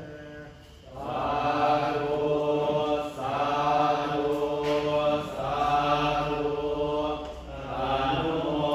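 Buddhist monks chanting together in unison on steady, held pitches. The chant grows loud about a second in and goes in phrases of about two seconds, with short breaks between them.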